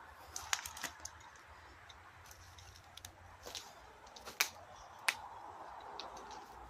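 Footsteps crunching through dry leaves, twigs and debris: irregular sharp crackles and snaps, the loudest about half a second, four and five seconds in.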